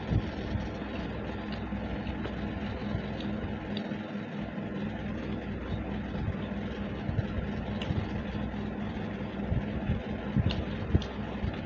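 Steady low mechanical hum, with a few short clicks and smacks of people eating rice and curry by hand, most of them near the end.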